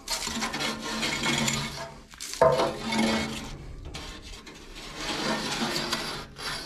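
A metal cleaning tool scraping soot out of a solid-fuel central-heating boiler, rasping against the steel in long strokes, with a sharp knock about two and a half seconds in.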